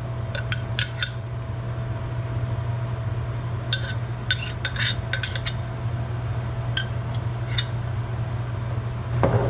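A metal spoon clinking and scraping against a glass jar and the Dutch oven as store-bought Alfredo sauce is scooped into the simmering stock. The clinks come in short runs, about a second in, around the middle, and a few more later, over a steady low hum.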